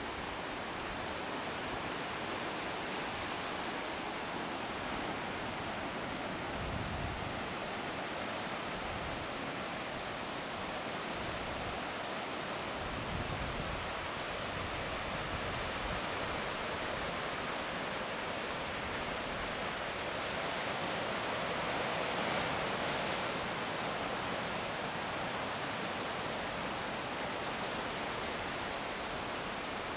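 Steady wash of sea surf breaking on rocks below a cliff, swelling a little about two-thirds of the way through, with a few brief low rumbles of wind.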